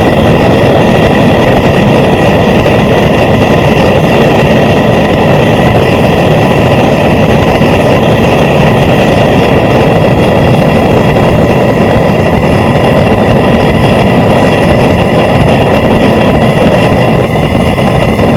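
Homemade propane forge burner running steadily at about 5 psi: a loud, continuous rush of gas and flame.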